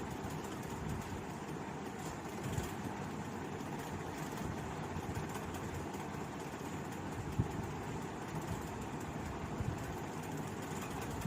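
Steady low rumbling background noise with no speech, and a faint knock about seven seconds in.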